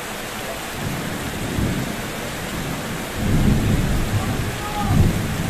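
Heavy rain falling on concrete ground and steps, a steady hiss. Deep low rumbles swell in about a second in and grow louder from about three seconds in, peaking again near the end.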